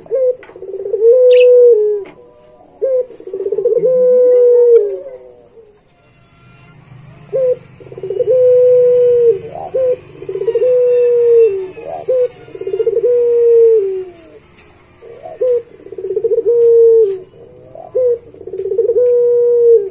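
Puter pelung, a long-cooing breed of domesticated Barbary dove, cooing over and over: each phrase is a short note followed by a long drawn-out coo that drops in pitch at the end.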